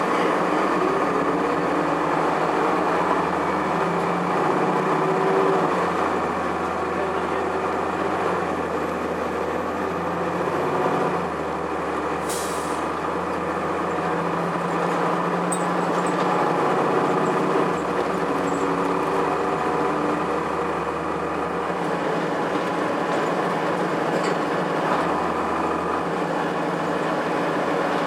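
Heard from inside a 2002 Blue Bird CS transit bus under way: the Cummins ISC inline-six diesel and Allison automatic transmission drone steadily with road noise. There is one short, sharp hiss about twelve seconds in.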